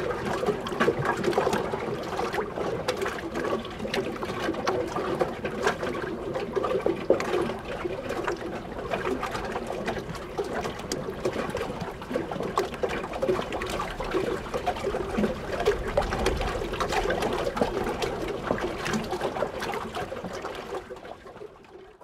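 Small waves of lake water lapping and splashing against a wooden boat pier, an irregular, continuous trickle of little slaps and gurgles. It fades out at the very end.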